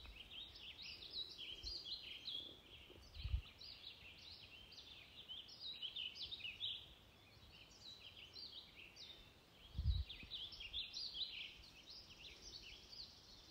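Many small birds chirping and twittering continuously, with two brief low thumps, one about three seconds in and one about ten seconds in.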